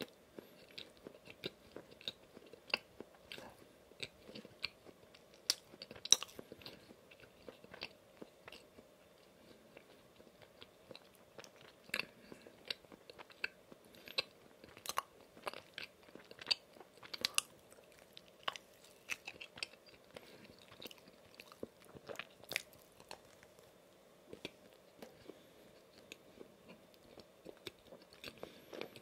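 Close-miked chewing of a soft donut: irregular wet mouth clicks and smacks, with a few sharper, louder ones.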